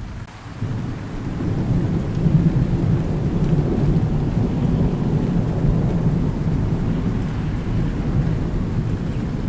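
Thunder rumbling over steady rain: a long low rumble that swells in the first two seconds and carries on heavily, with the hiss of rain beneath.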